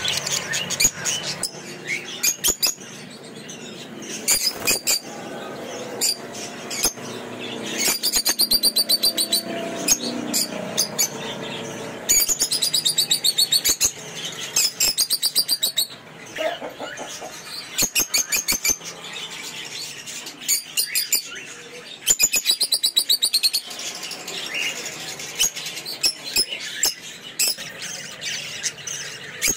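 A group of caged lovebirds chirping and chattering. Several times the chatter breaks into a burst of rapid, shrill chirps lasting a second or two.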